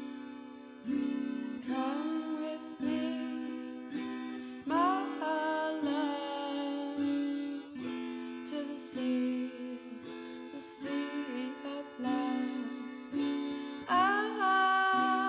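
Background music: a plucked string instrument picks notes over a steady low drone, with some melody notes sliding up in pitch.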